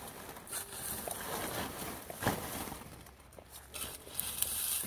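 Dry straw stalks rustling and crackling as gloved hands grab them from a pile and stuff them into a sack, in uneven bursts with a sharper crunch about two seconds in.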